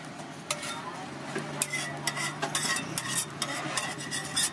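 Metal utensils scraping and clicking on a flat iron griddle over a steady frying sizzle, with a quick run of clicks a little past the middle.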